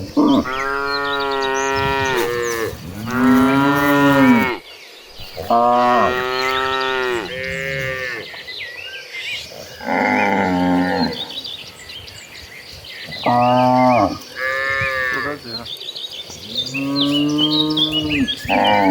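Cattle in a herd mooing again and again: about eight long, drawn-out moos in quick succession, at varying pitches.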